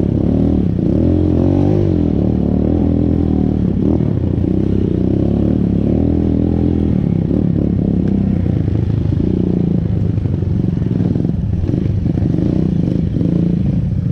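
Motorcycle engine running under way, its pitch rising and falling with the throttle for the first several seconds, then holding steadier.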